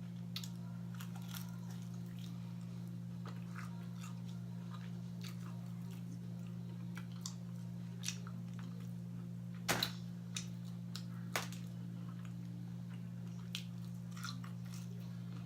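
Close-miked chewing and biting of fried food, heard as scattered wet, crunchy clicks, with a few louder bites around the middle. A steady low hum runs underneath.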